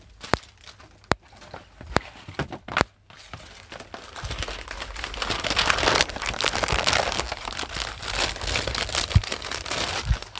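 Cardboard garment boxes handled with a few sharp knocks in the first three seconds, then a long stretch of plastic packaging crinkling as a packed garment is unwrapped from its box.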